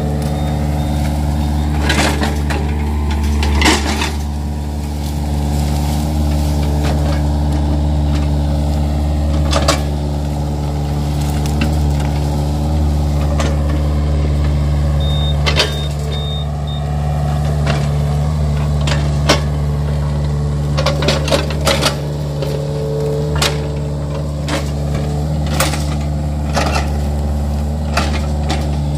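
Yanmar mini excavator's diesel engine running steadily while it works its hydraulics, with scattered sharp knocks and cracks as the bucket breaks through felled oil palm fronds and soil.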